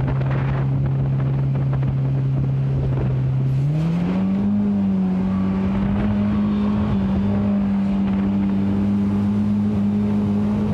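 Mercury outboard jet motor running at speed, driving the boat upriver: a steady engine drone that rises in pitch about three and a half seconds in and then holds at the higher note.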